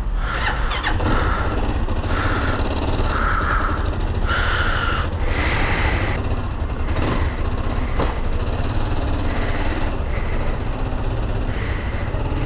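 Chinese motorcycle's engine running at idle just after a cold start, being warmed up, steady throughout.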